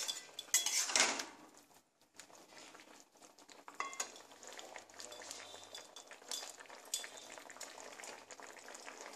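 A flat metal spatula scrapes and stirs through vegetables in a metal kadai for about the first second and a half. Then the shukto, just thickened with milk and flour, simmers with a faint steady bubbling and crackle.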